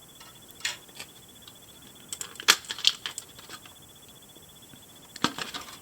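Light clicks and taps of small plastic doll-playset grill accessories being handled, with a quick cluster about two to three seconds in and one more click near the end.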